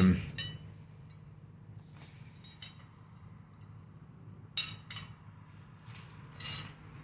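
Forged steel tong pieces clinking against each other several times as they are handled, each clink short with a light metallic ring.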